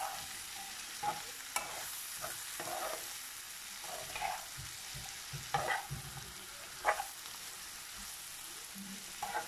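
Courgette batons sizzling in oil in a frying pan while a spatula stirs them, with irregular scrapes and knocks against the pan, the loudest about seven seconds in.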